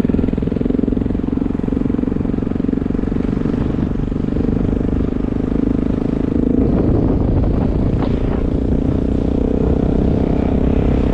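Motorcycle engine running steadily at road speed on a gravel track, with tyre and gravel noise; the sound gets rougher a little past halfway, with a few short knocks near the end.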